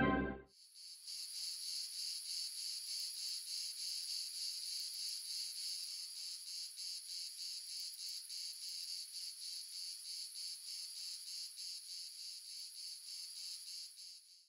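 Faint, high-pitched rhythmic chirring pulsing about four times a second, starting about half a second in and stopping just before the end.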